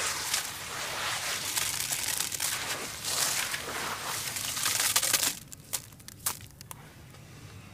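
Hands squeezing and crumbling wet charcoal ash chunks in a tub of watery slurry: a dense gritty crunching and squelching that stops about five seconds in, followed by a few single drops and clicks.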